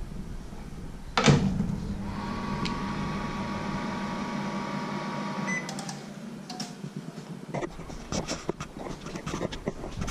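Panasonic microwave oven door shutting with a click, then the oven running with a steady hum for about four seconds before it stops. Light clicks and knocks follow.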